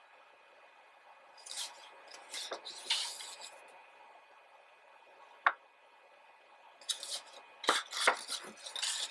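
Paper pages of a large printed book being turned by hand: two bouts of rustling and sliding, about two seconds in and again from about seven seconds, with a single sharp tap in between.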